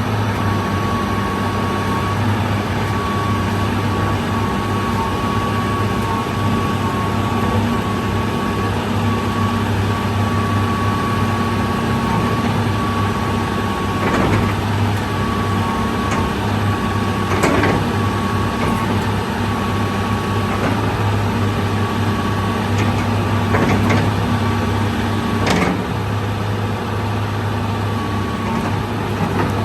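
Hitachi EX225USR hydraulic excavator's diesel engine running steadily, with a steady high whine over the low engine note and a few short knocks partway through.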